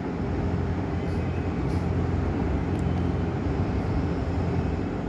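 A steady low mechanical hum with an even rushing noise over it.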